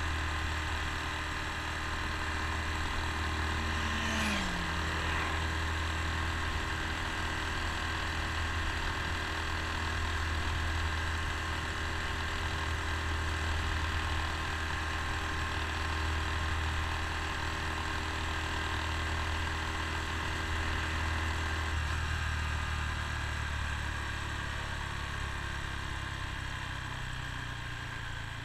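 Honda Super Cub C125's single-cylinder four-stroke engine running steadily at cruising speed, heard from the rider's seat. About 22 seconds in the throttle is closed and the engine note drops away as the bike slows.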